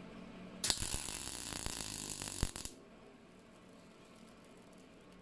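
MIG welder on CO2 shielding gas with 0.8 mm wire laying a single spot weld on thin steel sheet: the arc crackles and sizzles for about two seconds, starting just under a second in and stopping with a sharp crack.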